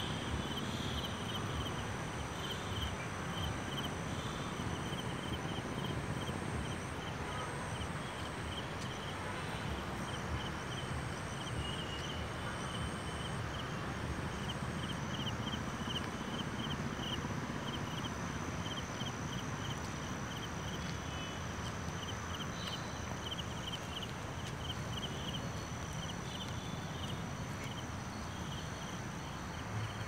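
Forest ambience: a high, steadily pulsing insect chirp, over a low rumble and the footsteps of someone walking along the road.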